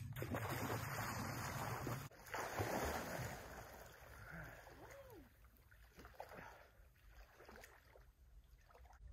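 Splashing water as a person runs into a lake and plunges in, loudest in the first few seconds, then fainter splashes as he swims.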